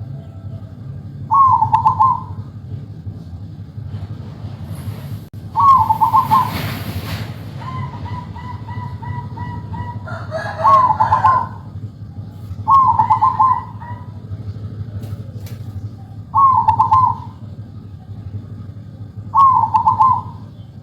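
Zebra dove (perkutut) repeating its short, rapid trilling coo six times, every three to four seconds, as a lure call to draw other perkutut into answering. A burst of rustling noise comes about six seconds in.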